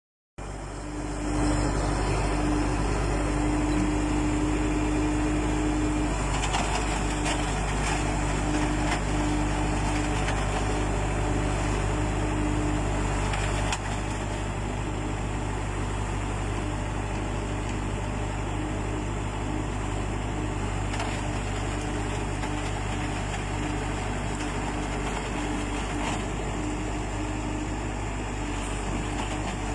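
Tata Hitachi EX70 excavator's diesel engine running steadily with a wavering hum over it, dropping a step in level about halfway through.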